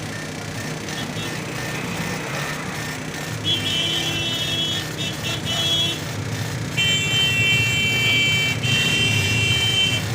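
CNC machine running with a steady low hum. A high-pitched whine comes in about three and a half seconds in, breaks off for a moment near six seconds, and returns about seven seconds in.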